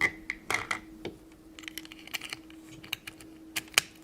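Small hard plastic clicks and taps, irregular and of varying loudness, as a Magiclip clip-on plastic dress is handled and snapped onto a small plastic doll.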